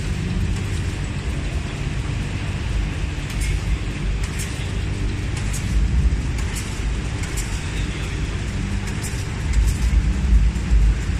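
Steady low rumble of a large exhibition hall's background noise, with faint scattered ticks, growing a little louder near the end.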